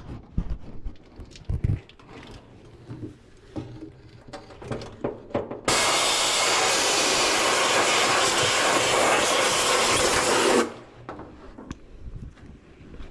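Compressed-air blow gun hissing steadily for about five seconds, starting and stopping abruptly, blowing out a fuel rail to clear a suspected obstruction. Before it, a run of light knocks and clicks.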